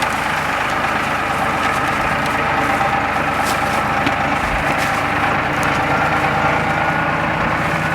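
An engine running steadily at one constant speed.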